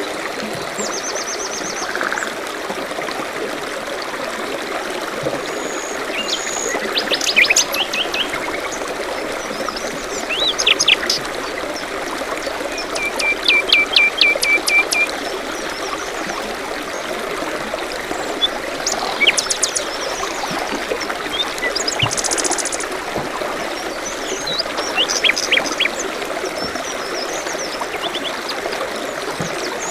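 A small stream trickling steadily, with songbirds calling over it: scattered short high chirps and trills, and a run of quick repeated notes about halfway through.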